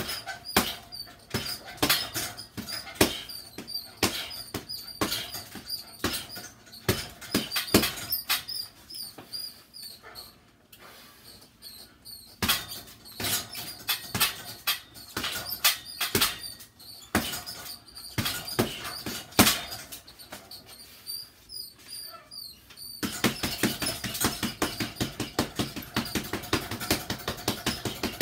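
Boxing gloves punching a teardrop-shaped heavy bag: irregular combinations of sharp hits with short pauses, a quieter lull a little before the middle, then a fast, even flurry of rapid punches near the end.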